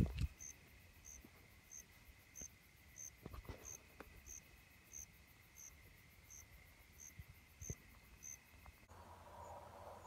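Faint cricket chirping in a steady rhythm, about three short high chirps every two seconds, with a few soft knocks as the caught yellow perch is handled on the rocks. Near the end the chirping cuts off and a soft steady hiss takes over.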